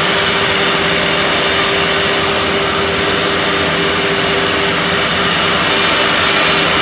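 Four-head CNC mortising machine running, its spindles cutting mortise slots into curved wooden parts: a steady mechanical noise with a constant hum.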